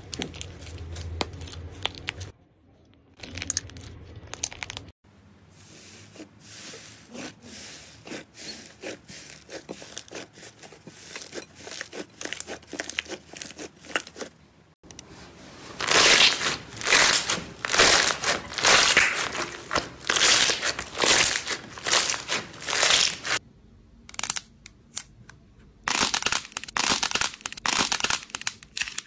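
Hands working slime and clay in a run of short clips. First a dried, cracked crust is broken off soft clay with small crunches, then slime is squeezed and kneaded with dense crackling clicks, loudest and densest a little past halfway.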